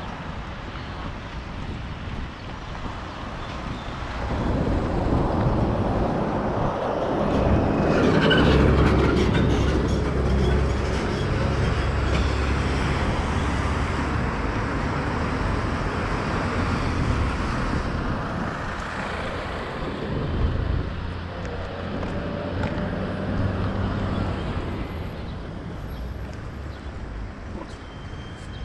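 Road traffic on a city street: cars driving past close by, the sound swelling about four seconds in and loudest around eight seconds, then a steady run of passing engines that eases near the end.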